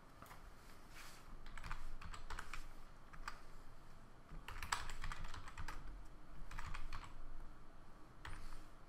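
Typing on a computer keyboard: several short bursts of keystrokes with pauses between them.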